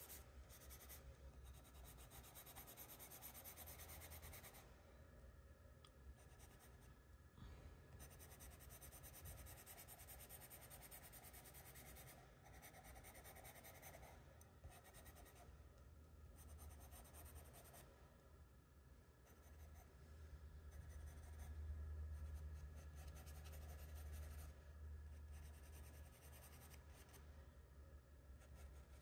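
Faint scratching of a charcoal pencil on sketchbook paper: quick shading strokes in runs, with short pauses between them.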